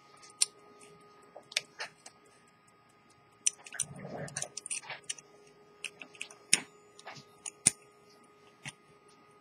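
Sharp small metallic clicks and taps at uneven intervals as an antique English silver-cased repeater pocket watch and its gilt movement are handled, with a soft rustle of handling about four seconds in.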